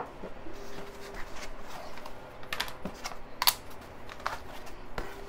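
Light, scattered taps and clicks of thin acrylic panels being handled and set down in a foam packaging frame, a handful spread over the second half.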